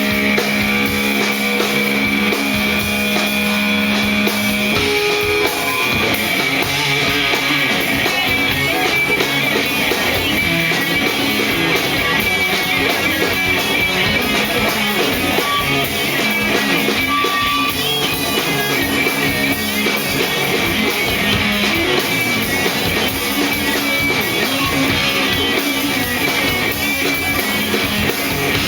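A rock band playing live: guitar over a drum kit, with a low note held for the first few seconds.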